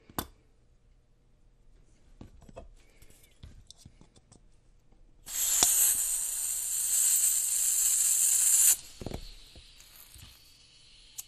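Butane hissing loudly from a Ronson butane refill can pressed into the fill valve of a Portasol butane soldering iron, for about three and a half seconds before it cuts off abruptly. Light clicks from handling the iron and its cap come before and after.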